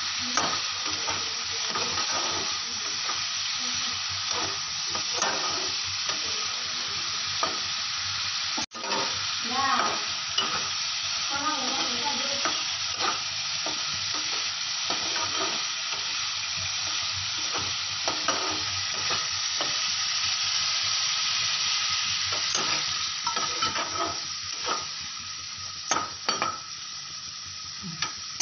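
Prawns and potatoes sizzling in oily gravy in a nonstick frying pan while a spatula stirs them, frequent short scrapes of the spatula over a steady sizzle. The sound cuts out for an instant about nine seconds in, and the stirring thins out near the end, leaving mostly the sizzle.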